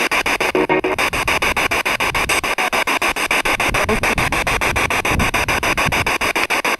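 Spirit box (ghost box) radio sweeping through stations: a loud hiss of static chopped into rapid, even pulses, with a brief snatch of tone about a second in.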